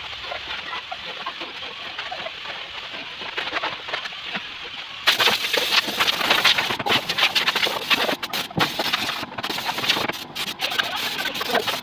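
Compressed air hissing from a blow gun on an air hose, starting abruptly about five seconds in and cut by several short stops as the trigger is released, most likely blowing sanding dust off a cement-coated speaker box. Before it, chickens cluck in the background.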